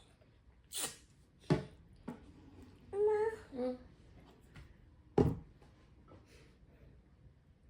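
Toddler babbling, a short two-part vocal sound about three seconds in, with a few sharp knocks around it.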